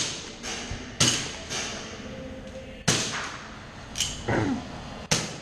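Airsoft guns firing single shots, about seven sharp cracks that echo: four about half a second apart, then three more about a second apart.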